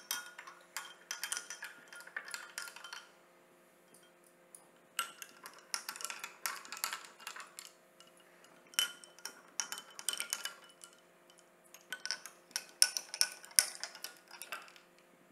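A long metal spoon stirring mojitos in tall glasses, clinking against the glass in four bouts of a couple of seconds each, one glass after another.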